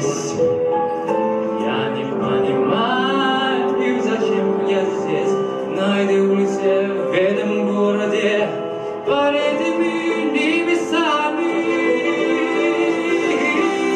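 Music with a singing voice, sustained sung notes over instrumental backing.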